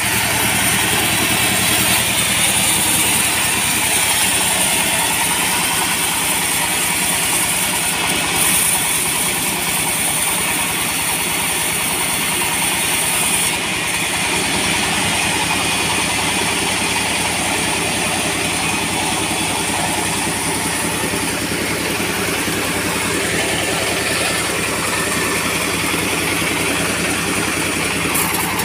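Engine-driven wood-sawing machine running steadily without a break while timber boards are fed through the saw, with a steady high hiss over the engine.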